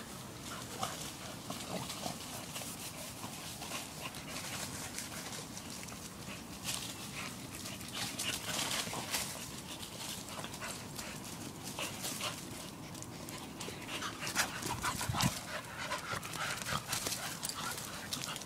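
Dogs playing, with scuffling and rustling on dirt and dry leaves and dog noises mixed in. Sharper short sounds cluster about three-quarters of the way through.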